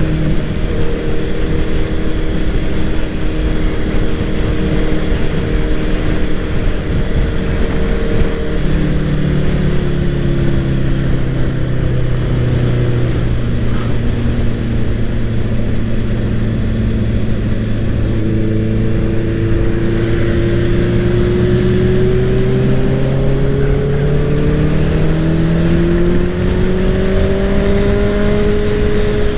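Honda CBR650R's inline-four engine running at highway speed, with wind rushing over the microphone. The engine note drops about ten seconds in, holds lower for a while, then climbs steadily through the second half as the bike accelerates.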